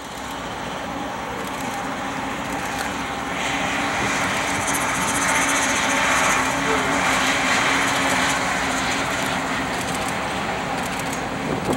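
Freight train's diesel locomotives passing close by, engines running with a steady drone under the rumble and rush of wheels on rail. The sound builds up over the first few seconds, then stays steady.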